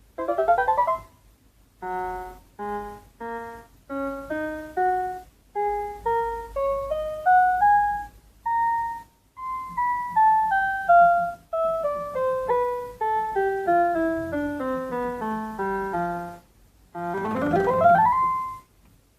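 Casio MT-18 electronic keyboard being played: a quick upward glissando, a rising run of notes, a long descending scale, then another upward glissando near the end.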